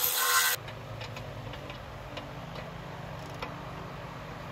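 A cordless ratchet runs in one short burst of about half a second and stops suddenly, turning the engine over to line up the next torque converter bolt hole. After it come a few light, scattered metal clicks over a steady low hum.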